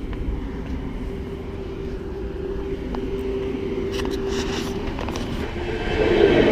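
SNCF AGC regional train: a steady drone, then about six seconds in a louder rush as a train goes by close.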